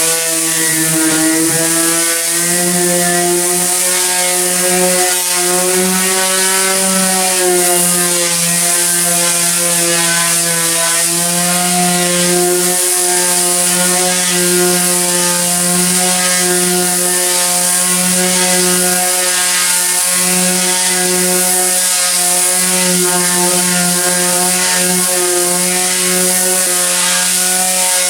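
Corded electric sander running steadily on a car's painted steel roof, rubbing back old sun-baked paint: a loud, even motor hum over a high hiss, its pitch sagging slightly now and then as the sander is pressed harder.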